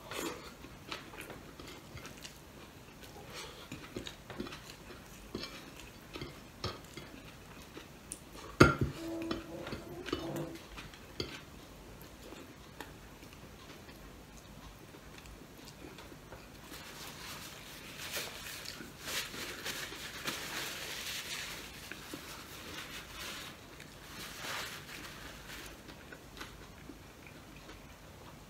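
Tableware clinking during a meal eaten by hand: scattered light taps and clicks of ceramic plates and dishes, with one sharp knock about nine seconds in that rings briefly. Later comes a longer stretch of soft, noisy eating sounds.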